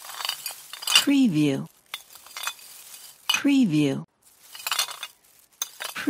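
Glass bottles in a carried package clinking and knocking against one another in quick, irregular clinks. Twice, about a second in and again past three seconds, a short spoken word falling in pitch, the same each time, sounds over it louder than the bottles.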